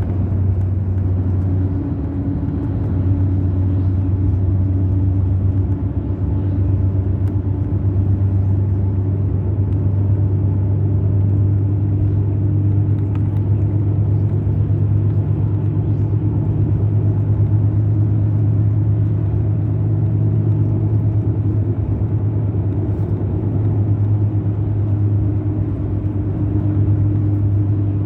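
Mercedes-Benz O500 RSD BlueTec5 coach's diesel engine running steadily with a low drone.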